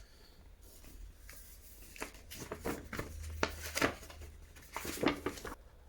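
Light rustling and scattered clicks of packaging and parts being handled, over a faint low hum.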